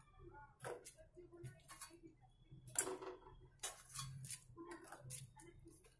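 Faint, irregular clicks and taps of a metal utensil against an aluminium pot as fried malpuas are slipped one by one into sugar syrup. The loudest tap comes about three seconds in.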